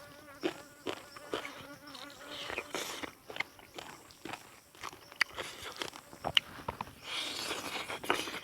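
Eating noises, with short wet clicks and smacks of chewing and handling food, while a fly buzzes close by for the first two seconds or so. About seven seconds in there is a brief rustle.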